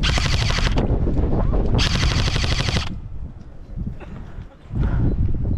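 Airsoft rifle firing on full auto in rapid bursts: one burst ends about a second in, and another lasts about a second near the middle.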